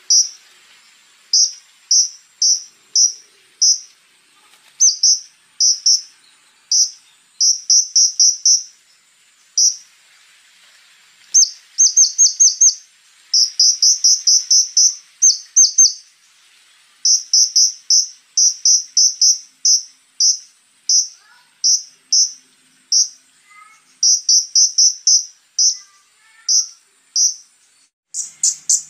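A konin songbird singing in fast, harsh runs of very high, sharp chips, each run a few to about a dozen notes, broken by short pauses. A faint, steady, high insect-like tone runs underneath, and a few softer, lower chirps come in the second half.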